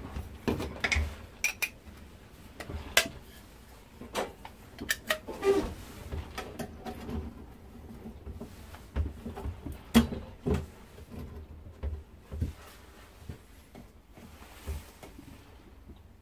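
Copper pipe and fittings clinking and knocking as they are handled and fitted together on a wooden bench: irregular sharp clicks, busier in the first half and sparser later.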